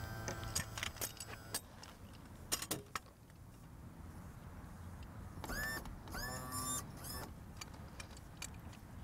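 Clinks and knocks of tie-down strap and transom support hardware being fitted to a boat trailer, then two short squeaky ratcheting zips about five and a half and six seconds in as a tie-down strap is tightened.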